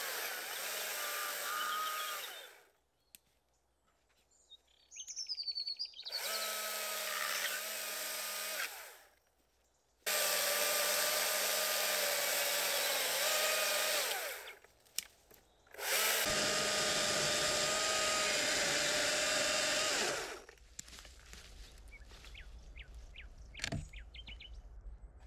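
Battery chainsaw cutting into a log in four runs of a few seconds each, a steady whine with near silence between runs. In one pause a bird chirps. In the last few seconds, wood chunks are broken out of the saw cuts by hand, with small knocks and one sharp crack.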